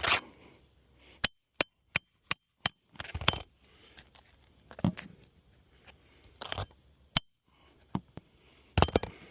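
Hammer driving a roofing nail through a 3-tab shingle: five quick, sharp strikes with a metallic ring, then scattered heavier knocks and scraping on the roof. The nail is not seating all the way in.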